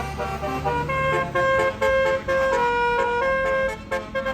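Bus telolet horn playing a quick tune of short, stepped notes, over a low engine rumble that fades about a second in.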